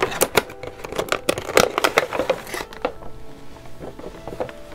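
Nendoroid packaging being opened: cardboard box flaps and the clear plastic blister tray pulled out and handled, giving a quick run of crinkles and clicks that dies down after about three seconds.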